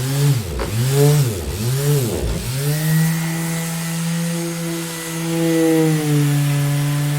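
Electric orbital sander running. Its motor pitch drops sharply and comes back up three times in the first couple of seconds, then holds a steady hum.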